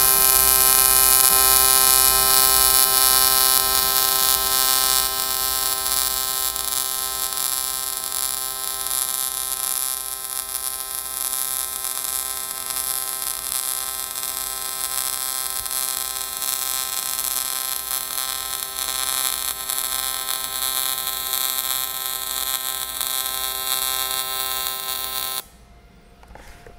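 AC TIG welding arc on thin aluminum at a fixed 45 amps from a trigger switch: a steady buzz of several even tones under a bright hiss, loudest as the arc strikes. The arc cuts off suddenly near the end.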